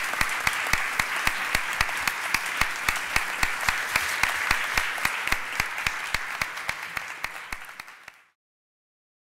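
Audience applauding, with one nearby pair of hands clapping steadily about five times a second above the rest. The applause fades out and cuts to silence about eight seconds in.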